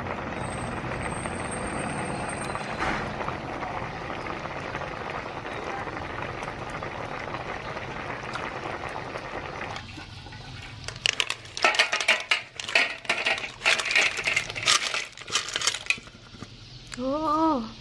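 A steady hiss for about ten seconds, then a run of hard, sharp clinks and clatters of small hard objects for about six seconds, and a short voice-like sound near the end that rises and then falls in pitch.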